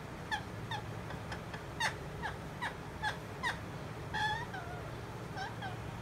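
Rose-ringed parakeet giving a run of short, sharp squawks that slide down in pitch, two or three a second, then a longer call about four seconds in and two more short squawks near the end.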